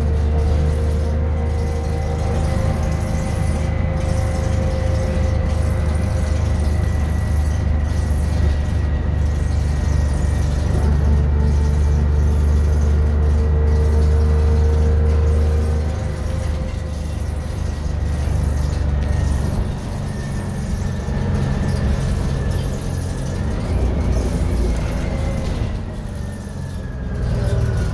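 Detroit Diesel 6V71N two-stroke V6 engine of a 1982 GM Fishbowl transit bus running under way, heard inside the passenger cabin as a loud, deep drone with a thin high whine above it. The drone drops off about 16 seconds in, and the whine falls in pitch near the end.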